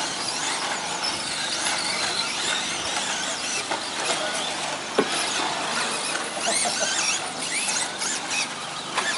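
Several radio-controlled 2WD short course race trucks running, their electric motors whining at high pitch and rising and falling with throttle. There is a sharp knock about halfway through.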